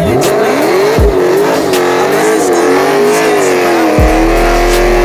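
Dodge Challenger's engine held at high revs during a burnout, its pitch wavering up and down as the rear tyres spin and squeal on the asphalt. There are a few low thumps.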